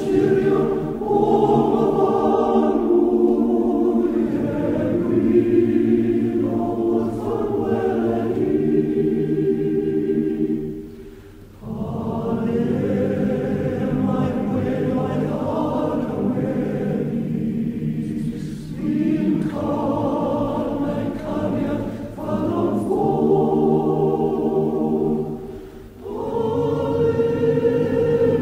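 A choir singing slow, sustained chords as a music soundtrack, with short breaks between phrases about eleven seconds in and again near the end.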